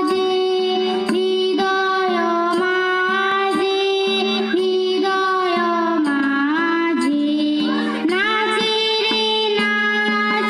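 A young girl singing an ornamented, gliding melody to her own harmonium accompaniment, over a steady held harmonium note, with hand drum strokes keeping time.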